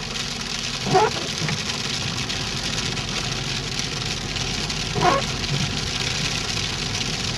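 Hail falling steadily on the roof and windshield of a Jeep Liberty, heard from inside the cabin as the Jeep runs.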